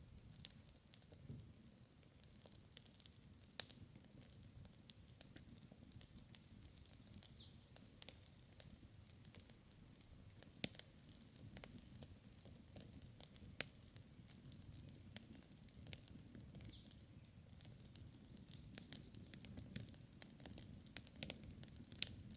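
Wood campfire crackling: sharp, irregular pops and snaps, a few much louder than the rest, over a low steady rumble.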